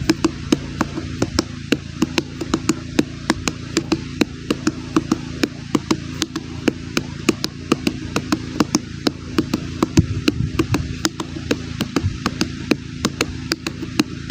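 Hands drumming on a watermelon: a continuous run of quick, sharp knocks, about three to four a second in a loose drum rhythm, over a steady low hum.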